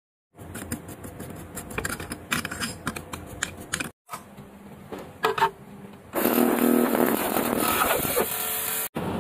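Small metallic clicks and ticks of a screwdriver and tweezers working on the parts of a vintage Seiko hand-wound watch movement. About six seconds in, an ultrasonic cleaner holding the parts starts running with a steady humming buzz and hiss.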